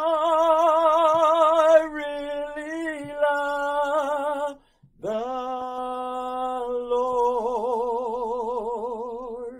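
A man singing a gospel song a cappella, with no accompaniment. He holds two long, drawn-out notes with vibrato, taking a short breath between them about five seconds in.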